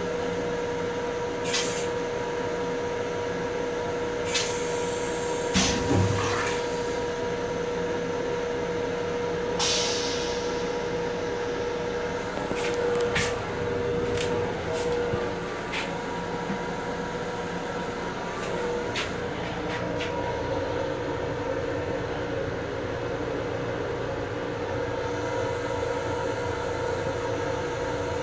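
Steady hum of a Long Island Rail Road M7 electric railcar heard from inside its small restroom, with one strong steady tone. Scattered sharp clicks and knocks come through it, the loudest about six seconds in.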